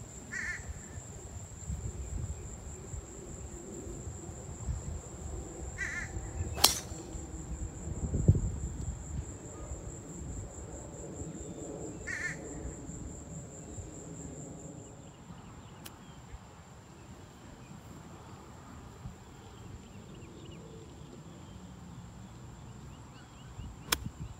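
A driver strikes a golf ball off the tee with a sharp crack about seven seconds in, and near the end a short wedge shot gives a lighter click. Crows caw a few times over open-air ambience, with a steady high whine running underneath.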